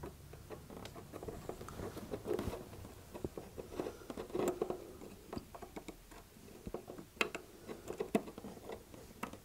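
Fingers fitting the tiny retaining screw at the end of a Seagate M.2 NVMe SSD seated in a PCIe adapter card: small irregular clicks, ticks and scraping of metal on the circuit board.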